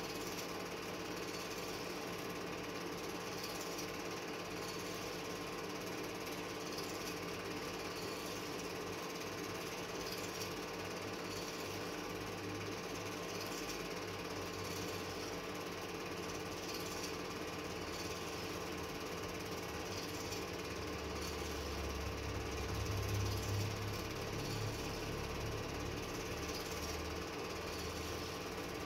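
Steady fast mechanical clatter and hum of a running film projector, with a low rumble swelling for a few seconds past the middle.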